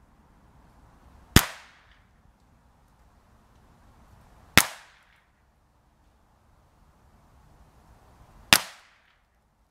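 Ruger 10/22 semi-automatic .22LR rifle firing three single shots, a few seconds apart, each a sharp crack with a short fading tail.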